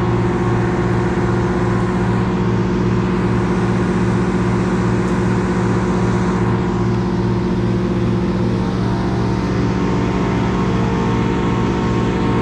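An engine running steadily at constant speed, with an even throb repeating a few times a second.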